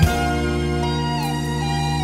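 Instrumental outro of a Chinese pop song, with no singing: held chords under a melody line that slides from note to note.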